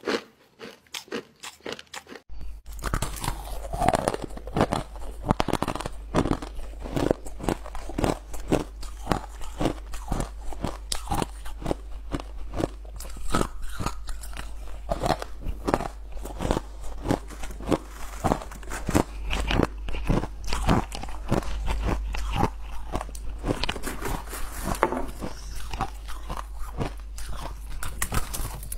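Ice being bitten and chewed close to a clip-on microphone: a rapid run of sharp, crackly crunches of frozen chunks. The crunches grow louder about two seconds in, where a steady low hum starts beneath them.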